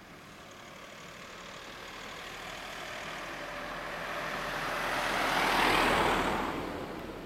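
A road vehicle passing by. Its noise swells steadily, is loudest about six seconds in, then fades.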